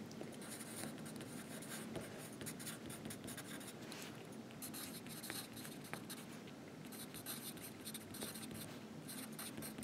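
Faint scratching of handwriting: short runs of writing strokes with brief pauses between them.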